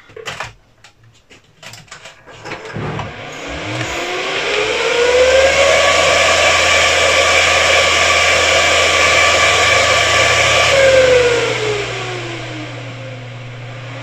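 Dell PowerEdge T310 server's cooling fans spinning up at power-on: a whine rises over a couple of seconds, holds at full speed for several seconds, then winds down and settles into a lower steady hum as the server goes through its start-up self-test. A few light clicks come just before the fans start.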